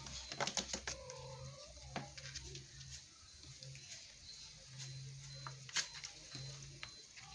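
Kittens wrestling in a cardboard box: their claws scratch and scrabble on the cardboard in quick irregular clicks and scrapes, with a sharper one about three-quarters of the way through. A faint kitten mew about a second in.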